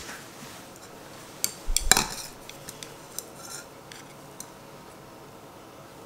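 Kitchen utensils clinking and knocking against a dish: a quick cluster of clinks with one heavier knock about two seconds in, then a few light ticks.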